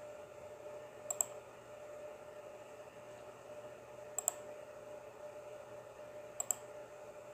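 Computer mouse button double-clicked three times, about two to three seconds apart, over a steady faint hum.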